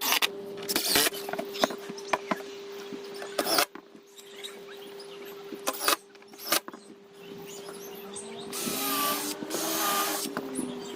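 Power tools working timber boards: a steady hum with repeated sharp knocks and clacks, and a louder stretch of noise about eight seconds in that lasts a second or two.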